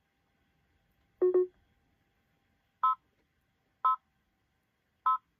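Computerized embroidery machine's control panel beeping as its buttons are pressed. One lower, longer beep comes about a second in, then three short, higher beeps follow about a second apart.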